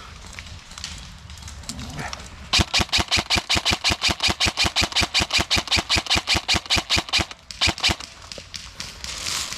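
Airsoft gun firing on full auto close by: a long burst of rapid, evenly spaced shots lasting about five seconds, then a brief pause and a short burst of a few more.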